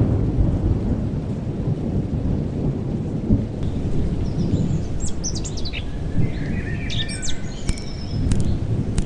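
A low, rolling rumble of thunder runs throughout. About halfway through, birds start chirping and tweeting over it, with quick sharp chirps near the end.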